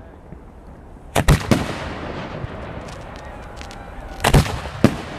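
Aerial firework shells bursting: two quick booms about a second in and another two near the end, with faint crackling in between.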